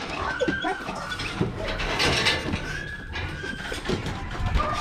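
Dogs whining and whimpering at each other through kennel bars: a string of short, high-pitched whines with a few lower sliding yelps in between.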